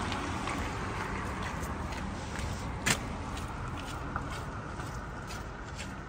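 Street ambience: steady car traffic noise with faint footsteps on the pavement, and one sharp click about three seconds in.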